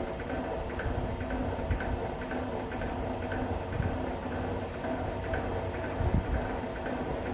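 Vevor electric wire stripping machine running steadily, its motor and drive giving an even whirring hum with a few light ticks.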